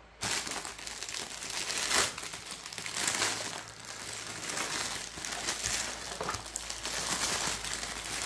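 Clear plastic bag crinkling and rustling as it is opened and a blister-packed figure and magazine are pulled out of it, with louder crackles about two and three seconds in.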